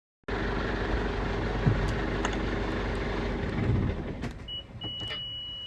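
An engine running steadily, starting abruptly and dropping in level after about four seconds. A few sharp clicks and a steady high beep come near the end.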